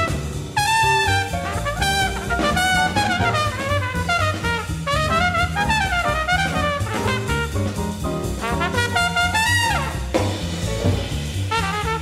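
Trumpet playing an up-tempo bebop solo in quick runs of notes over a jazz rhythm section with a stepping bass line and drums. The line breaks off briefly about ten seconds in, then picks up again.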